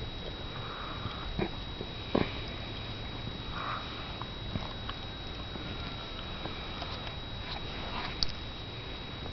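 Small dogs snuffling and sniffing in their bed: a miniature pinscher mother and her two-week-old puppies. Two sharp clicks, about one and a half and two seconds in, are the loudest sounds, over a faint steady high whine.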